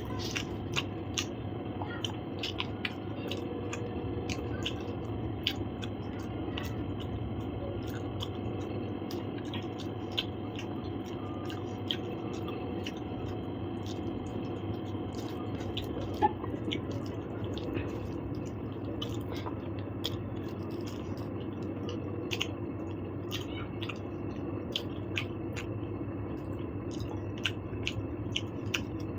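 A person chewing and eating, with wet mouth clicks and smacks at irregular intervals over a steady low hum; one sharper click about sixteen seconds in.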